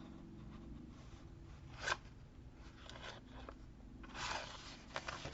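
Faint paper-crafting handling sounds: a short sharp rustle about two seconds in, a few soft ticks, and a longer rustle of paper near the end, over a low steady hum.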